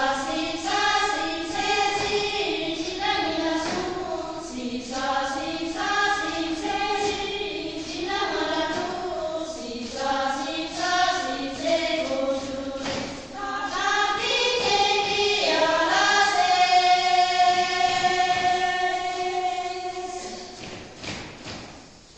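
A group of mostly women's voices singing a Sherpa Shyapto dance song in unison, with no instruments and a few stamps of the dancers' feet. Near the end they hold one long note that fades away.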